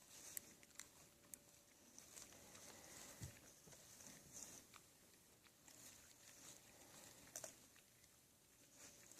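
Faint, scattered crunching and cracking at irregular intervals: black bears chewing peanuts.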